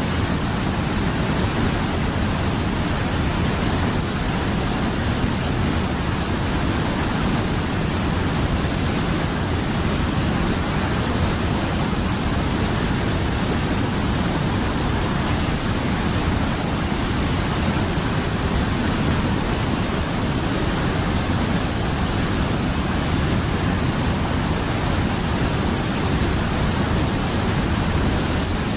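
Mountain river flowing, a steady rushing of water at an even level throughout.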